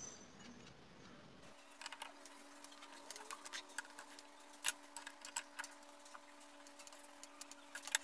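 Irregular metallic clicking and ticking of a socket wrench tightening the flywheel nut on a Bajaj CT100 motorcycle engine's crankshaft, with a sharper click just before halfway and another near the end.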